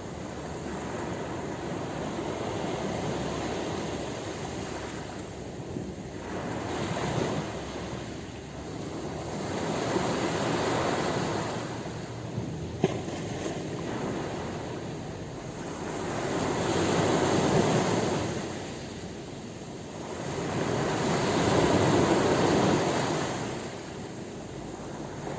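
Ocean waves breaking on a shore, the surf swelling and falling away every few seconds, with the loudest surges in the second half.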